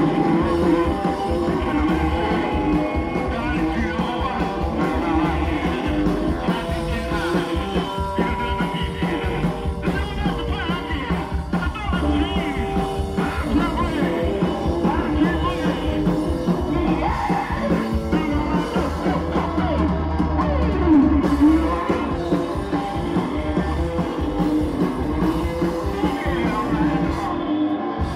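Live rockabilly-punk band playing loudly with a singer, upright bass and drums.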